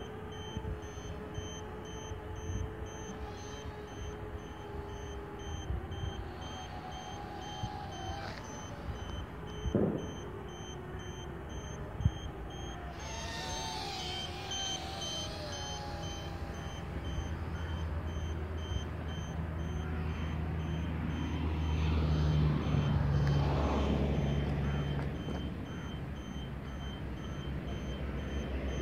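Micro quadcopter's four 6 mm motors and propellers whining, the pitch wavering and gliding up and down with throttle, over a steady electronic beeping. From about halfway through a low rumble builds, loudest around two-thirds of the way, then eases.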